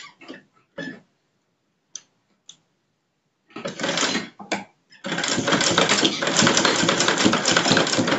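Manual sewing machine stitching a buttonhole: a few light clicks, then a short burst of rapid needle strokes about three and a half seconds in, and a steady run of fast stitching from about five seconds in. It is sewing a dense, bold row along the side of the buttonhole.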